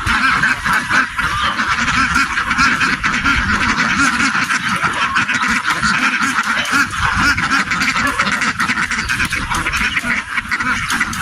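A huge flock of domestic ducks quacking all at once, a dense unbroken din of overlapping calls.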